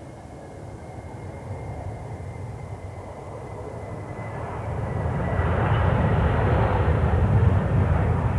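Airliner engines growing louder as the aircraft nears: a low rumble swells over about five seconds and stays loud near the end. A faint high whine is heard in the first few seconds.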